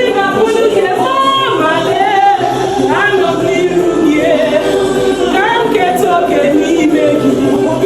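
Background music: several voices singing together, choir-like, in a gospel style.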